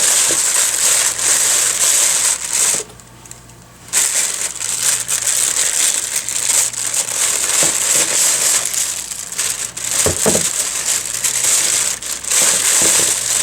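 Plastic packaging crinkling and rustling as mini split accessories are handled and unwrapped, with a short lull about three seconds in.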